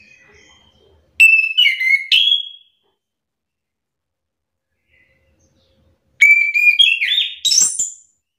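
Chestnut-capped thrush (anis kembang) singing two loud phrases, about a second in and again about six seconds in. Each phrase is a quick run of clear whistled notes that jump between pitches and rise at the end.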